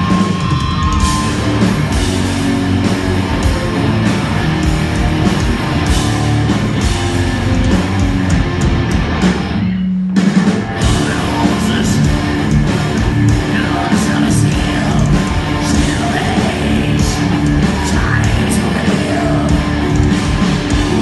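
Heavy metal music with guitar and singing.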